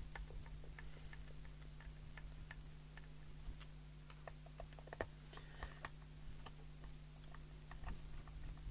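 Faint, scattered small clicks and taps from hands handling the casing of a mobile CB radio, over a steady low hum.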